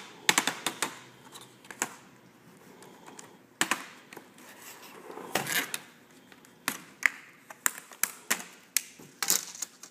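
Plastic snap clips of an HP DV7 laptop's LCD bezel clicking and popping loose as the bezel is pried off the screen by hand: irregular clusters of sharp clicks, most in the first second and through the second half.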